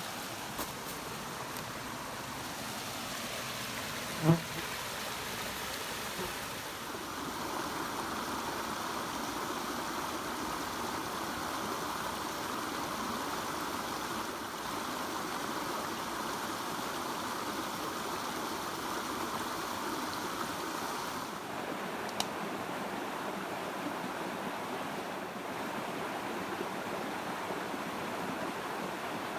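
A small river rushing over a little waterfall: a steady, even rush of water. A single brief knock sounds about four seconds in.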